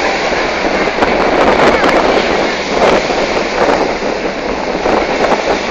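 Rough surf breaking and washing up the beach, with wind buffeting the phone's microphone and the steady drone of a hovercraft's engines and propellers passing close offshore.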